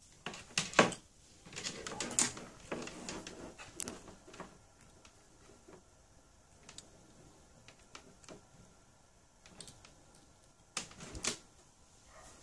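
Test leads and plastic probes of a multimeter being handled, giving irregular clicks, taps and rustling of the cables; the sounds come in a cluster at the start and again briefly near the end.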